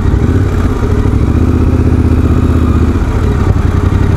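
Motorcycle engine running steadily at low revs, near idle, as the bike rolls slowly up to a stop in traffic.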